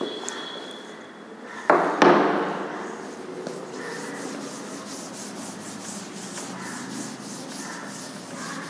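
Felt chalkboard duster wiping across a blackboard in repeated scrubbing strokes, erasing chalk. Two loud sharp knocks come close together about two seconds in.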